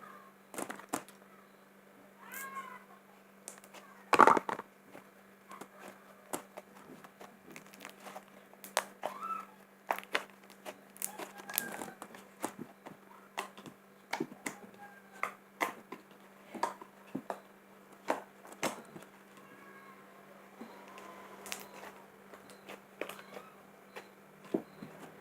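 Homemade glue-and-baking-soda slime being squeezed and kneaded by hand, giving irregular sticky pops and clicks, a louder snap about four seconds in, and a few short squeaks.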